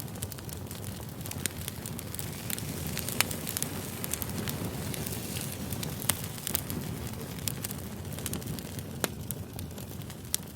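Campfire crackling: a steady rumble and hiss of burning wood with frequent sharp pops, a few louder ones about three, six and nine seconds in.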